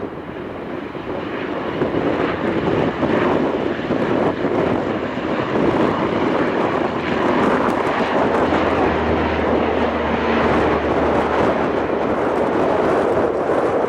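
ATR 72-202 twin turboprop's Pratt & Whitney PW124B engines and propellers at takeoff power through the takeoff roll and liftoff. The noise builds over the first couple of seconds and then holds steady. A low propeller hum comes in for a few seconds past the middle.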